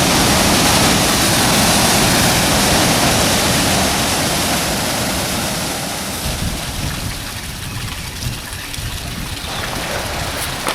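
Large waterfall crashing down into its pool, heard from the bottom: a loud, steady rush of falling water that eases off somewhat in the second half.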